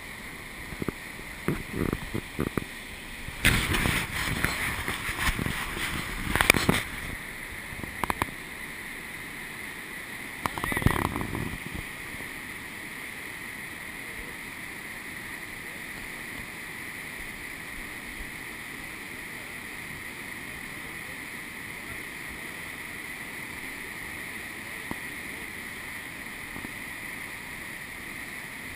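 Steady rushing of whitewater rapids and falls in the gorge below. Several rustles and bumps on the camera microphone in roughly the first twelve seconds, then only the even rush of water.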